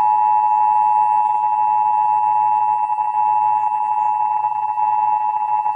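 Emergency Alert System attention signal: two steady tones sounded together (853 and 960 Hz), the harsh alert tone that warns an emergency message or test is about to follow. Here it introduces the monthly test.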